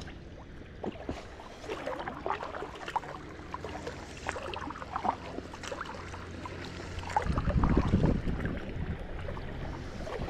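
Kayak paddle strokes: water splashing and dripping off the blades in short, irregular splashes. About seven seconds in there is a louder low rumble lasting about a second.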